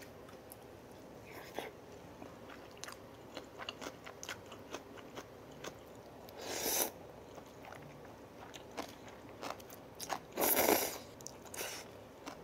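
Close-up eating sounds: soft chewing with small wet mouth clicks, and two louder slurps of cold naengmyeon noodles, about six and about ten and a half seconds in.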